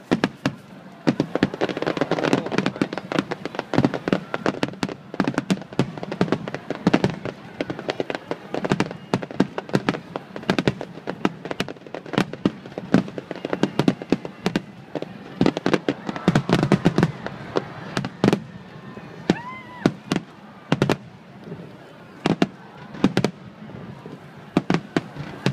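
Fireworks barrage: many aerial shells bursting in quick succession, a dense run of bangs and crackles several a second with no let-up.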